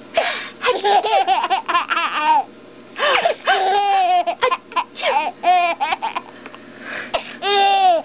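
Baby laughing in several bouts of high-pitched giggles, with gasping breaths between them.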